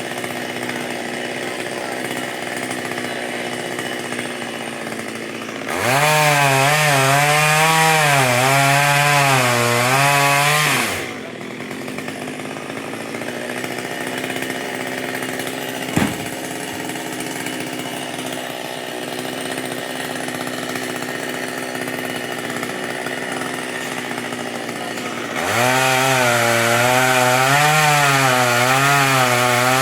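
Two-stroke chainsaw running steadily at low speed, twice revved up for about five seconds with its pitch wavering as it bites into wood. A single sharp click comes about halfway through.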